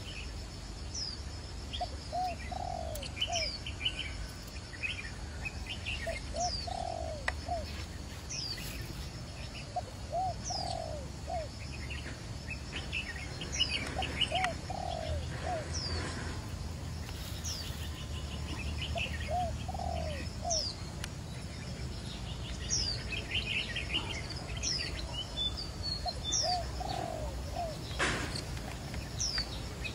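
A dove cooing in short phrases of a few notes, repeated every few seconds, while small birds chirp high, quick calls around it. A single sharp click comes near the end.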